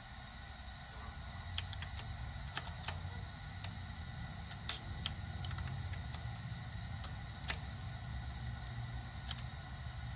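Scattered light metal clicks and ticks, about a dozen spread irregularly, of a box-end wrench and screwdriver working against a rocker-arm adjuster lock nut as it is tightened during a valve adjustment, over a steady low hum.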